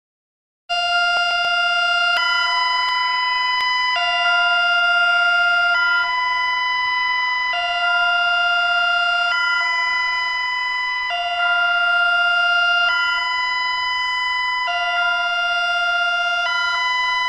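Electronic emergency-alert tone starting abruptly about a second in. It switches back and forth between two steady, multi-tone chords about every two seconds, with a fainter wavering tone underneath at times.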